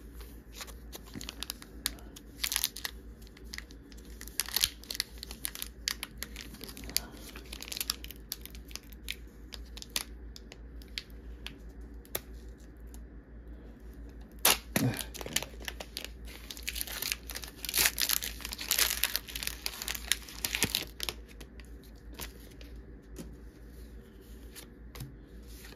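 Foil Pokémon booster pack wrapper crinkling and being torn open. Scattered crinkles come through the first several seconds, then a sharp rustle, then a dense run of tearing and crinkling about two-thirds of the way through.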